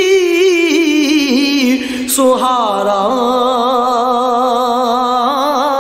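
A man singing a Punjabi Sufi kalam, heard as a single unaccompanied voice. He holds long ornamented notes with a wavering vibrato, breaks off about two seconds in, then starts a new, lower sustained phrase.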